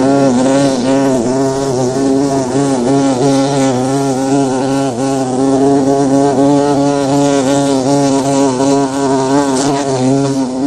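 Recorded sound effect of a bee buzzing: a loud, steady hum that wavers slightly in pitch.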